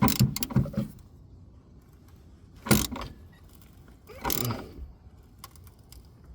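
Hand ratchet and socket working a shock absorber mounting bolt tight: irregular metallic clicks and clinks, a quick cluster at the start, one sharp click near three seconds in and a longer rattle a little after four seconds.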